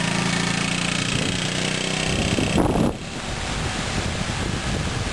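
An engine running at a steady pitch, which rises briefly and then cuts off about three seconds in, followed by wind buffeting the microphone.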